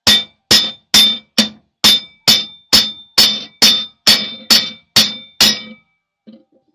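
Hammer striking metal: a steady run of about thirteen sharp, ringing blows, roughly two a second, stopping about a second before the end. The blows are trying to drive a tight drive part that won't move.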